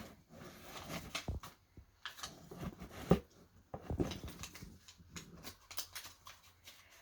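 Irregular rustling, taps and clicks of packaging and items being handled as a box is unpacked.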